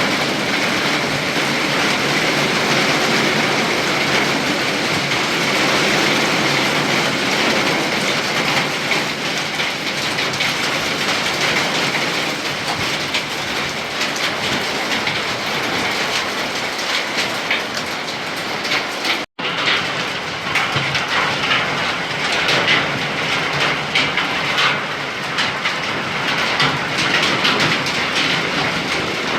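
Heavy thunderstorm rain pouring in strong wind, a steady loud rushing roar. After a brief cut about 19 s in, it carries many more sharp pattering impacts of drops or hail striking surfaces.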